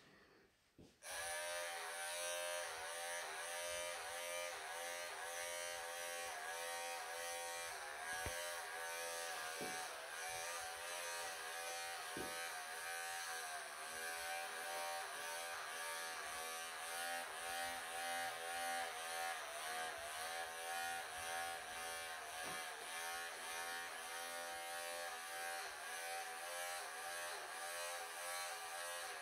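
Wahl electric pet clippers switching on about a second in and then running steadily with a buzzing hum, its pitch wavering slightly as the blades clip through a Persian cat's long, thick coat.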